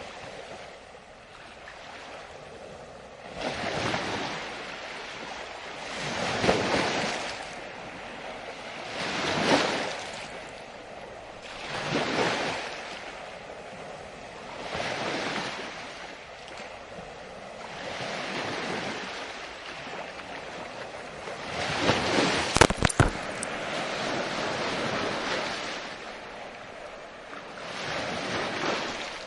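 Ocean waves breaking on a beach, the surf swelling and washing back every few seconds. On the loudest wave, about two-thirds of the way through, there is a brief cluster of sharp clicks.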